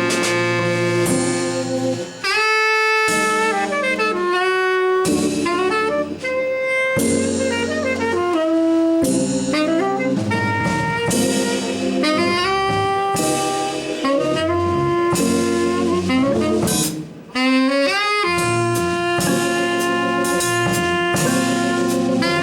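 Live jazz trio playing: a saxophone carries the melody in held notes and quick runs over drums, with brief breaks in the line about two seconds in and near seventeen seconds.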